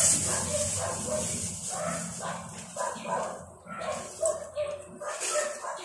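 A dog yipping and whining, about two to three short pitched calls a second, over a steady high hiss.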